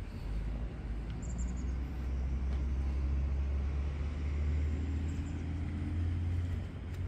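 BMW M6 Gran Coupe's twin-turbo V8 idling: a steady low rumble.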